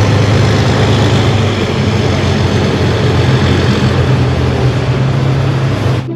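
A loud, steady engine-like rumble with a rushing hiss over it, which cuts off suddenly about six seconds in.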